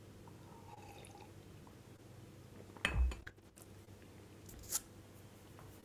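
Quiet sipping from a ceramic mug, then the mug set down on a desk with a dull clunk about three seconds in. A short click follows near the end.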